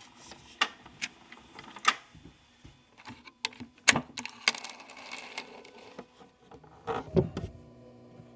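Scattered sharp clicks and knocks, about a dozen and irregularly spaced, with a louder cluster of clatter near the end.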